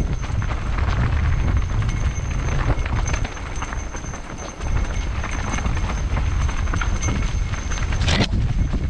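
Wind buffeting the microphone over the rattle and clatter of a mountain bike riding a rough trail, with one sharper knock near the end.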